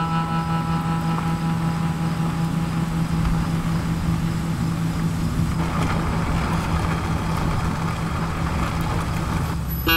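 A low, steady hum under a rushing noise that swells in the second half. The hum and rush are cut off near the end as held musical notes come in suddenly.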